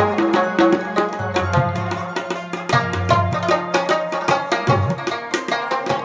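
Rabab playing a fast plucked instrumental melody of an Indian song over steady percussion accompaniment.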